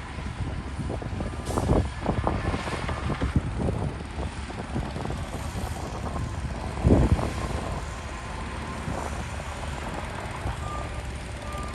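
Diesel engines of heavy earthmoving machinery running, with a reversing alarm beeping. Several heavy clunks stand out, the loudest about seven seconds in.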